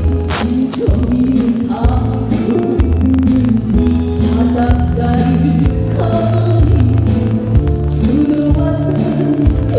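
Woman singing a Korean trot song live over backing music with steady bass and beat, holding long wavering notes.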